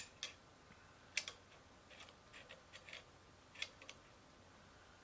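Light metallic clicks and scrapes of M1 Carbine steel parts being handled as the bolt is set into the receiver. There are sharp clicks at the start, about a second in and near the end, with softer ticks between.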